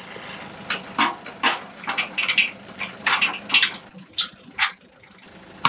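Steel pod cradle being shifted and knocked into place: about a dozen irregular clunks and knocks, some in quick pairs, with a steady low hum underneath.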